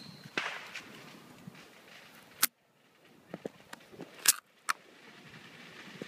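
Handling noise: a few sharp clicks and knocks, the loudest about two and a half seconds in and again near four and a half seconds, over a faint hiss.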